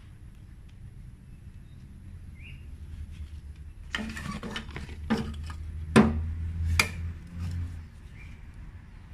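A run of sharp clicks, knocks and light clatter over a few seconds in the middle, with two louder knocks close together: plastic flower pots and pruning scissors being handled while soil is knocked off a hibiscus root ball. A faint low rumble runs underneath.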